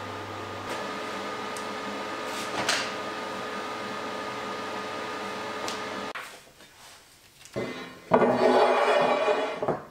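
A steady workshop machine hum with a few faint clicks, cutting out about six seconds in. Near the end a flat steel plate slides and scrapes across a black walnut tabletop for about a second and a half.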